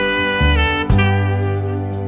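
Background instrumental music: held melody notes over a bass line, with a sharp beat about a second in.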